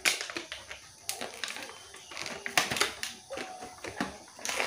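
Small plastic toy pieces being handled: irregular clicks, knocks and light rattles.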